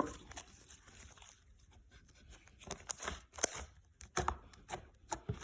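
Slime being squeezed and poked by hand for ASMR, giving scattered sticky clicks and pops, more frequent in the second half.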